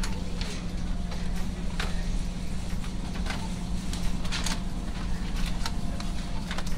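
Steady low hum of supermarket refrigerated display cases, with scattered light clicks and rattles.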